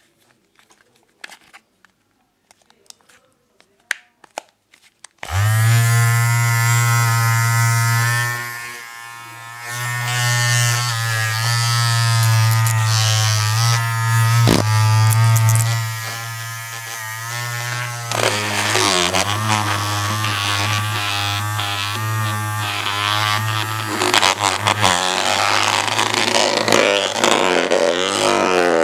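A few faint clicks, then about five seconds in a small electric motor starts buzzing loudly with a steady low hum. The buzz dips briefly, turns wavering about 18 seconds in, and grows noisier near the end.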